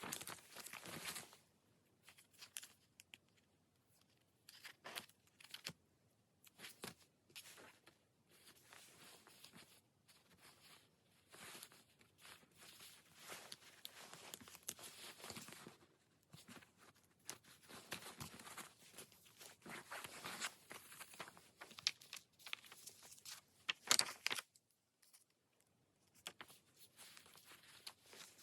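Paper and sticker sheets rustling and crinkling as they are handled, in irregular short bursts with brief pauses between them, the sharpest crackle about four seconds before the end.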